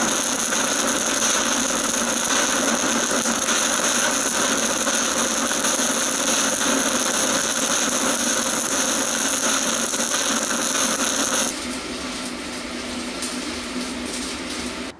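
Stick-welding arc of an ESAB 7018 low-hydrogen electrode (3.2 mm) crackling and sizzling steadily on the first pass, with the arc held somewhat too long by the welder's own account. The arc stops about eleven and a half seconds in, leaving a quieter steady hiss.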